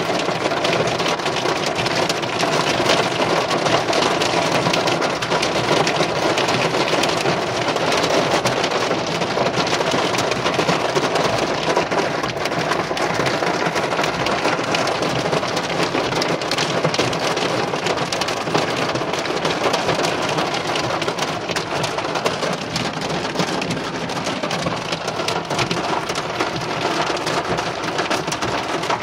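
Hail and heavy rain pelting a car's roof and windscreen, heard from inside the cabin: a dense, steady patter of countless small hits.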